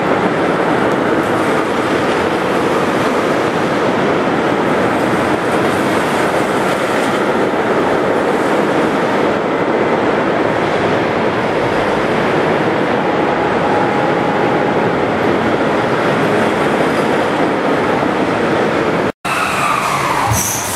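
Loud, steady noise of a steel roller coaster running on its track in a large indoor amusement park hall, with no clear rhythm. It cuts out for an instant near the end.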